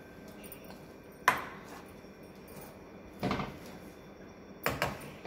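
Dishes handled on a kitchen counter, a steel plate and a bowl: a sharp clink about a second in, a duller knock past three seconds, and two quick knocks near the end.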